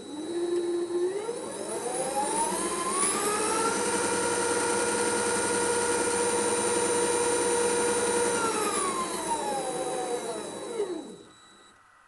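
Chinese mini lathe with its motor driving a layshaft through a toothed belt, run up in speed with a rising whine, held at a steady speed for about four seconds, then slowed down and stopped. A steady high tone sounds under it throughout.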